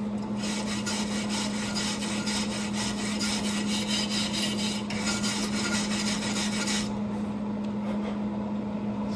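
Welding arc crackling in two runs: a long bead, a brief break about five seconds in, then a shorter one that stops about seven seconds in, over a steady hum.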